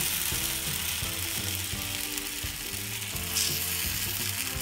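Steel spoon scraping repeatedly on a hot tava as suji-besan chilla batter is pressed and spread round, over a steady high hiss of the batter sizzling.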